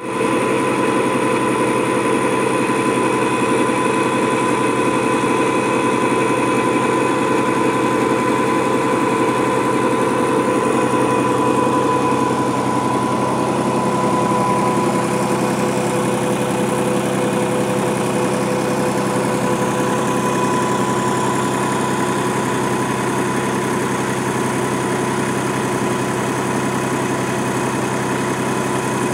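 Tractor engine running steadily, driving a 30 kVA three-phase PTO alternator. A steady high whine sits over the engine and fades out about halfway through.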